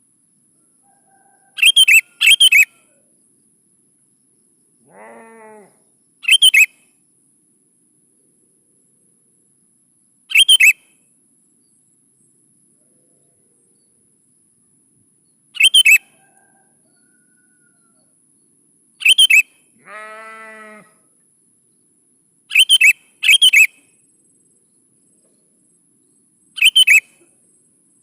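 Sooty-headed bulbul (kutilang) calling: short, sharp, loud notes every few seconds, often in quick pairs. Twice a lower, longer call of about a second sounds between them.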